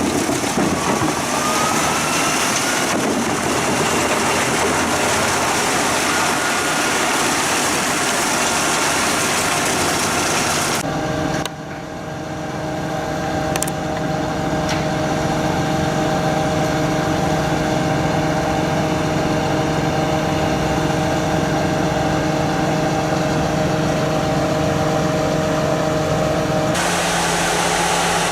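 Heavy machinery engine running, across several cut-together shots: first a rough, noisy stretch with a faint rising whine, then from about eleven seconds in a steady engine hum with clear even tones, which changes again near the end.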